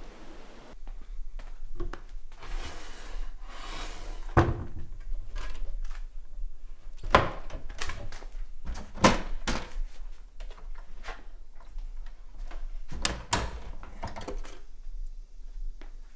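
Wooden kitchen drawers and cupboard doors being slid open and shut: a sliding rush, then a string of knocks and thunks, with several sharp bangs through the middle.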